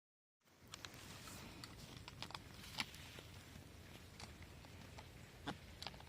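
Half a second of dead silence, then faint steady background noise with scattered light clicks and ticks.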